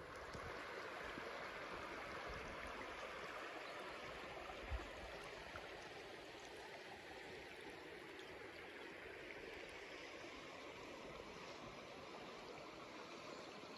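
Shallow river running over a stony bed: a steady, gentle rush of water, with a brief low thump about five seconds in.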